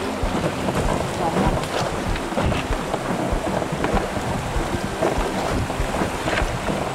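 Fast mountain river rushing and splashing around a wooden raft, with irregular low rumbles of wind buffeting the microphone.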